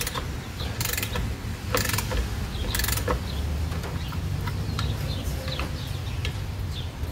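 Socket ratchet on a long extension clicking as its handle is swung back and forth, about one stroke a second at first, then in shorter, quicker strokes, turning a tight master cylinder nut that has just started to move.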